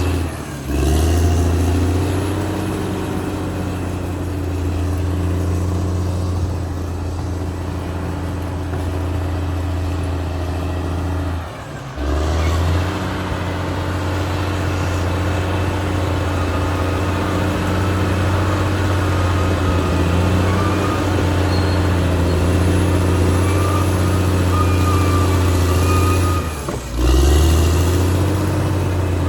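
Caterpillar D6R XL bulldozer's diesel engine running steadily at working revs, with a deep, even hum that drops out briefly three times: about half a second in, near the middle and near the end.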